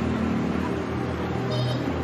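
Background music with a steady low drone.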